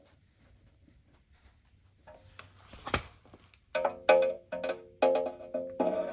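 Music: a few faint clicks and a short rising swell, then about four seconds in a run of bright struck or plucked notes begins in a steady rhythm.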